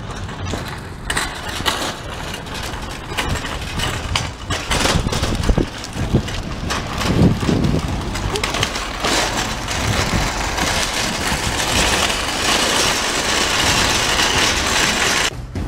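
Loaded wire shopping cart being pushed across pavement, its metal basket rattling and its wheels clattering with many small knocks. In the second half the wheels roll over rough asphalt with a steady, dense rumble.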